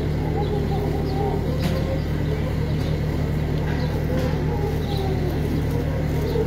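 A motor engine idling steadily with a constant low hum, under faint voices from the crowd.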